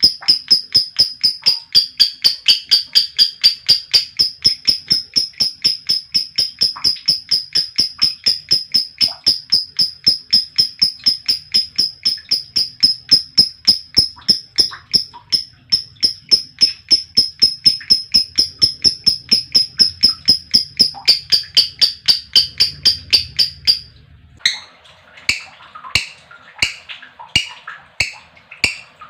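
Female lovebird's long 'ngekek' chatter: a rapid, even string of sharp high chirps, about four a second. Near the end it breaks into slower, scattered chirps of varying pitch.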